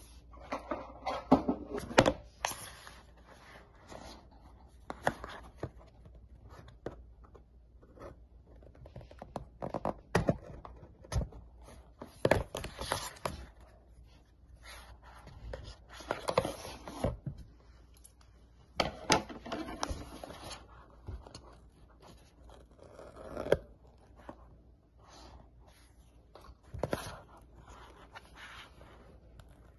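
A blade scraping and slitting the seal of a small cardboard box, with hands rubbing, picking at and tapping the box. It comes in irregular bursts a few seconds apart, with a few sharp clicks.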